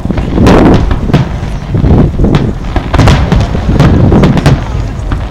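Aerial firework shells bursting in quick succession, loud booms about two a second with echo ringing on after each.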